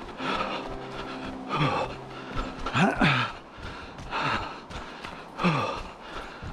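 A runner breathing hard and gasping for breath, a heavy breath about every second and a half. Each breath carries a short, falling vocal note.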